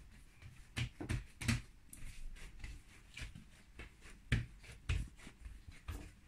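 Hands pressing and slapping risen brioche dough on a table to knock the air out of it: irregular thumps and pats, about one or two a second.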